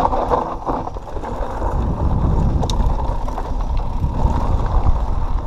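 A mountain bike on 27.5+ tyres riding a dirt trail, heard from a GoPro: a steady, loud rumble of tyres rolling over the ground mixed with wind on the microphone.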